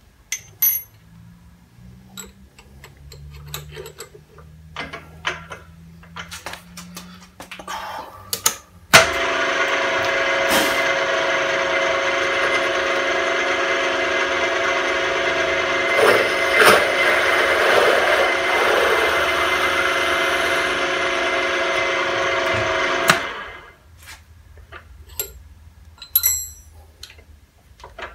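A milling machine's spindle motor running with a steady whine of several tones while drilling a handle held in the vise. It starts abruptly about nine seconds in and winds down about fourteen seconds later. Light clicks and knocks of handling come before and after.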